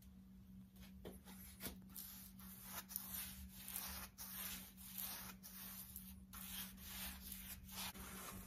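Paintbrush strokes on the steel shell of a heating oil tank: a quick series of faint, scratchy brushing sounds, starting about a second in.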